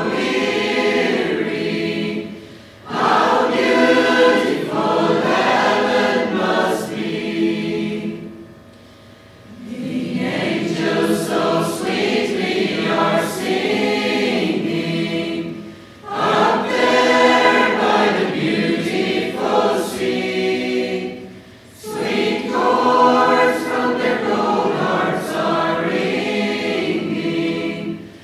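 Choir singing a hymn in phrases several seconds long, with brief pauses between them and one longer pause about eight seconds in.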